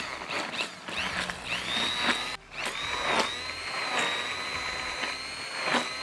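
Immersion blender blending a liquid marinade in a glass bowl. Its motor comes on with a steady whine about a second and a half in, cuts out for a moment, then runs on steadily, with a few short knocks along the way.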